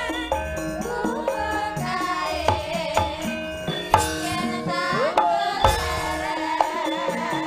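Female sinden singers singing together through microphones, with a Javanese gamelan accompaniment and kendang hand-drum strokes keeping the beat.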